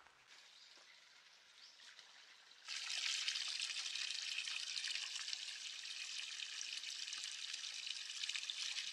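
Water pouring steadily from a spout into a wooden trough, starting suddenly about two and a half seconds in after a faint, near-quiet start.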